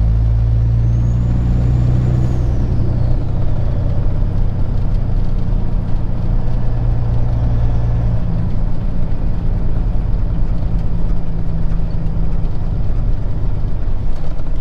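Peterbilt 379's diesel engine running steadily in the cab while the truck rolls in slow traffic, with tyre and road noise. A faint high whistle rises and falls about a second in.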